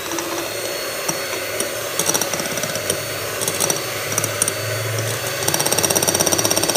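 Electric hand mixer running steadily, its beaters whipping stiff egg-white meringue as egg yolks are added. A fast, even clicking comes in during the last second or so.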